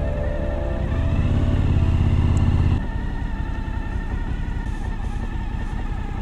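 Suzuki V-Strom V-twin motorcycle engine running under way with road and wind noise. The engine note swells and rises about a second in, then drops off sharply near three seconds and runs on more evenly.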